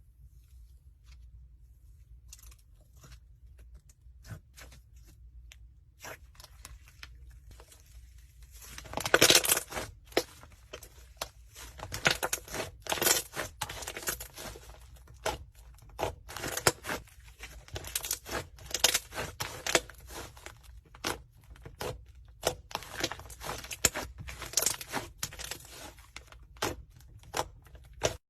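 Slime being squeezed and stretched by hand, giving a dense run of sticky clicks and pops. These start faint and grow much louder about nine seconds in.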